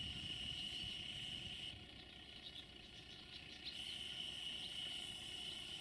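Insects chirring steadily in a high, even band, falling silent for about two seconds midway, over a faint low rumble.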